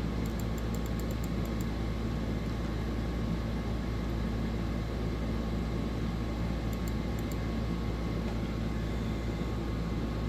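Steady mechanical hum and hiss of room background noise, even throughout, with a few faint high ticks in the first second and a half and again around seven seconds in.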